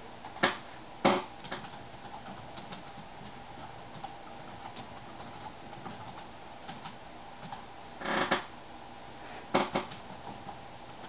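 Computer keyboard typing with mouse clicks: light, scattered keystrokes, with two sharp clicks about half a second and a second in and louder clatters at about eight and nine and a half seconds.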